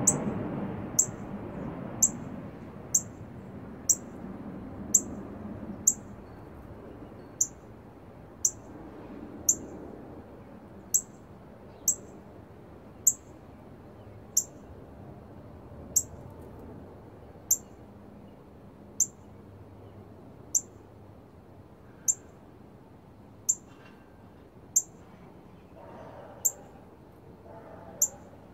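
Northern cardinal giving a steady series of sharp, high chip notes, roughly one a second, about two dozen in all. A faint low background rumble fades out over the first few seconds.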